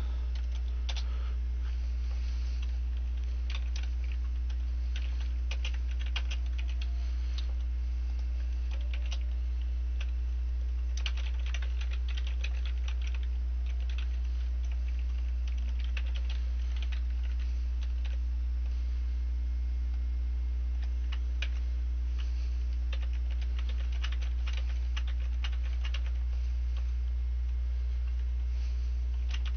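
Typing on a computer keyboard in bursts of quick key clicks, with pauses between, over a steady low electrical hum.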